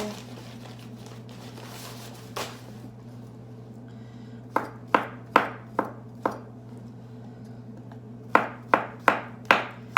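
Knife chopping mushrooms on a cutting board: one knock, then two runs of about five sharp chops at two to three a second, with a pause of about two seconds between them.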